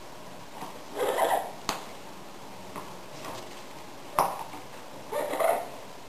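Panama Amazon parrot playing with a hanging toy on its rope perch: two short, rough bursts of sound and two sharp knocks, one between them and one just before the second burst.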